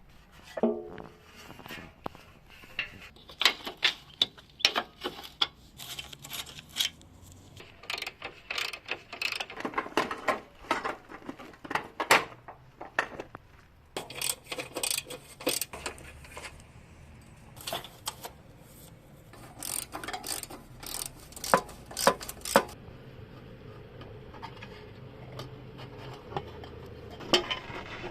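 Metal tools and motorcycle parts clinking and knocking irregularly as they are handled and set down, with sharp metallic taps coming in quick clusters.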